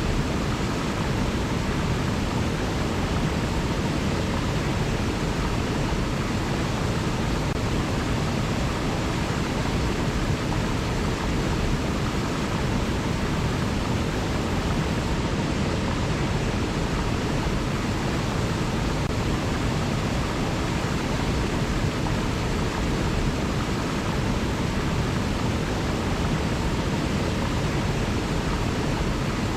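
River water flowing in a steady, even rush with no changes.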